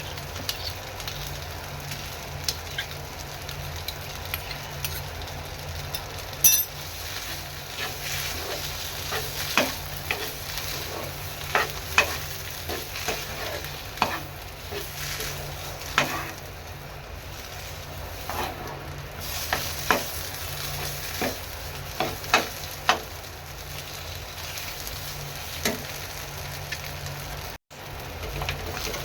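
Food cooking in a pan with a steady sizzle while a spoon stirs it, scraping and clicking against the pan every second or two. The sound cuts out for a moment near the end.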